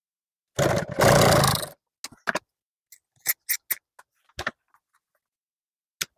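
Industrial sewing machine running in one short burst of about a second, stitching a small piece of vinyl, followed by a scattering of sharp clicks.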